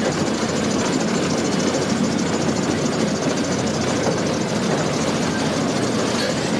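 Zoo ride train's engine running steadily, heard from aboard the moving train as an even rumble.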